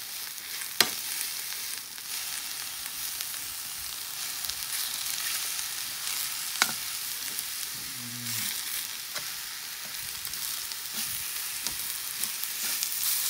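Stinging nettles and lamb chops sizzling in butter in a frying pan while being turned with metal tongs: a steady hiss of frying, with sharp clicks of the tongs against the pan about a second in and again at about six and a half seconds.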